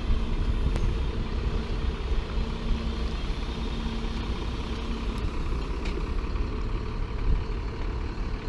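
Heavy engine running steadily at idle, a low rumble with a steady hum over it.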